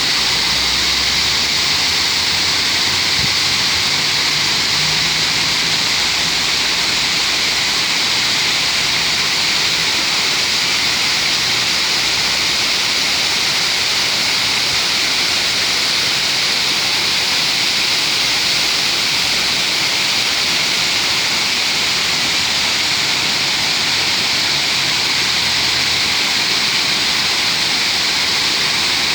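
Man-made waterfall over artificial rock, water pouring down in a steady, unbroken rush.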